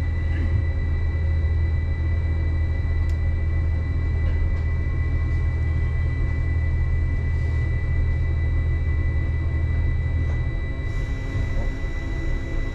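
Uijeongbu Light Rail's rubber-tyred VAL train running along its guideway, heard from inside at the front: a steady low rumble with a thin, steady high whine. The rumble eases a little near the end.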